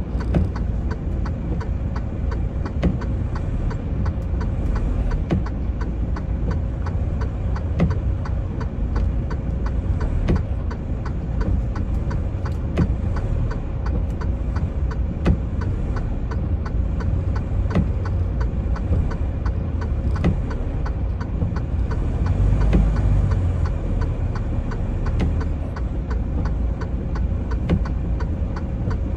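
Semi-truck engine and cab rumble heard from inside the cab, steady and low, with a sharp click about every two and a half seconds and fainter ticks in between.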